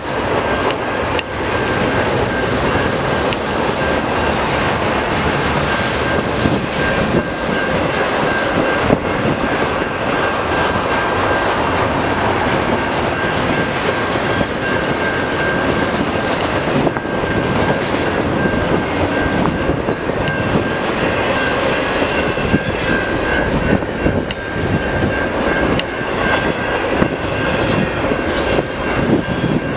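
Double-stack intermodal freight train's container-laden well cars rolling past at speed: a steady rumble and rattle of steel wheels on the rails, with a thin steady high ringing tone running through it.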